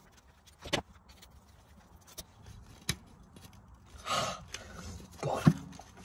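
Sharp metal clicks and clinks as a shifter cable end and its retaining clip are worked onto the transmission shift linkage by hand, with a few strained breaths in the second half.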